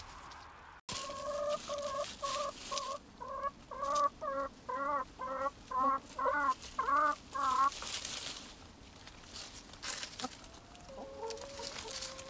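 A hen clucking in a run of about fifteen calls, between two and three a second, growing louder and more wavering toward the end. Then hens scratching and rustling through leaf-covered compost, with a few softer clucks near the end.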